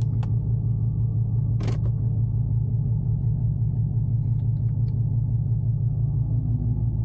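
Chevrolet Camaro SS's 6.2-litre V8 idling steadily, heard from inside the cabin, with a couple of brief clicks at the start and a short rustle just under two seconds in.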